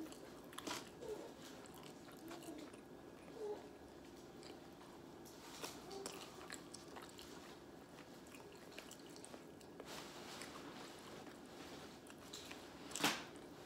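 Close-up chewing and biting of saucy chicken wings, with wet mouth sounds and small sharp clicks now and then. There is one louder sudden crackle about a second before the end.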